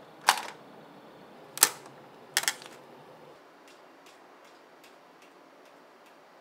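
Camera shutter firing three times, each a sharp click, the last one doubled. After that comes a run of faint ticks, about two or three a second.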